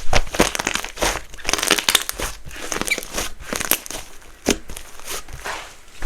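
Clay-mixed glue slime being worked by hand, giving irregular sticky crackles and pops, with a couple of louder pops about half a second and four and a half seconds in.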